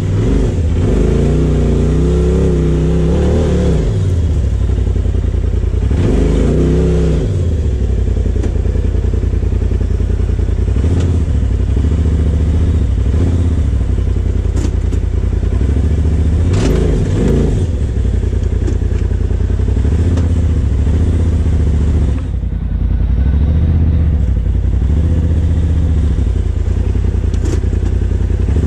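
Polaris RZR Turbo S's turbocharged twin-cylinder engine running as it drives along a dirt trail, heard from the cockpit, its pitch rising and falling with the throttle near the start, around six seconds in and around seventeen seconds in, with a few knocks over the bumps.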